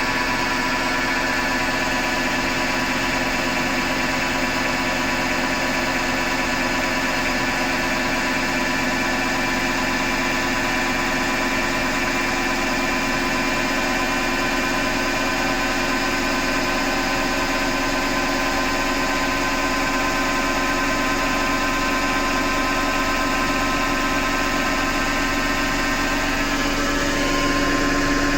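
Hotpoint Ariston FMD963 washing machine running with a steady grinding whine made of several held tones over a rough noise, shifting slightly near the end. The owner suspects the grinding comes from the motor rather than the drum.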